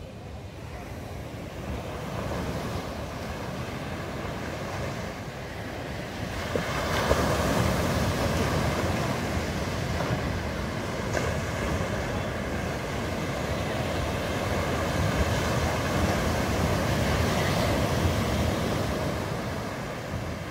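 Ocean surf breaking and washing up a sandy beach, with wind rumbling on the microphone. The surf grows louder about seven seconds in.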